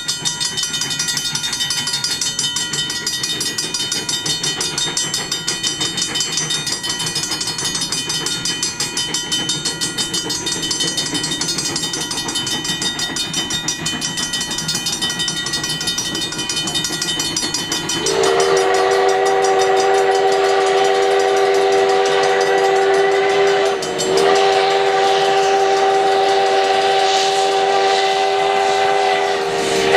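Grade-crossing warning bell dinging in a fast, steady rhythm as the steam locomotive approaches. About eighteen seconds in, Sierra Railway No. 3's steam whistle sounds for the crossing: a long, loud chord-like blast of about six seconds, a brief break, then a second long blast.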